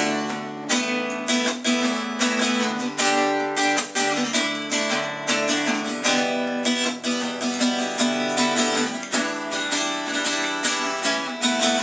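Acoustic guitar strummed in a steady, quick rhythm, chords ringing between strokes, with no voice: an instrumental passage between sung verses.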